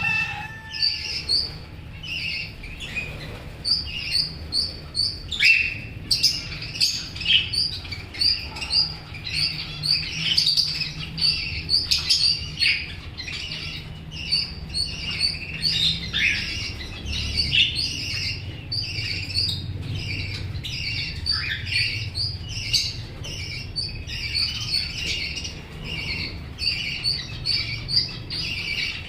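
A flock of budgerigars chirping and chattering continuously in many short, overlapping high calls, over a faint steady low hum.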